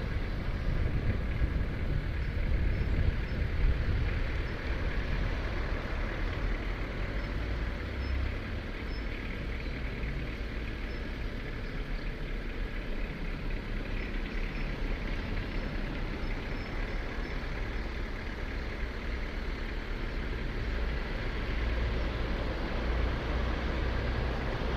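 Steady vehicle noise heard from a moving vehicle in slow city traffic, with a low, buffeting rumble of wind on the microphone underneath.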